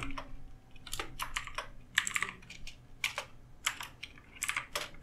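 Typing on a computer keyboard: short keystroke clicks coming irregularly, in small bursts of a few keys at a time.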